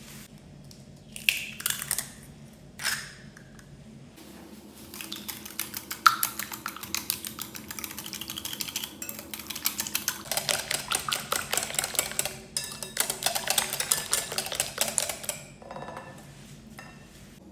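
A utensil clicking rapidly against a mixing bowl, as in whisking batter by hand. A few separate knocks come first, then a run of quick strokes that lasts about ten seconds and gets louder partway through.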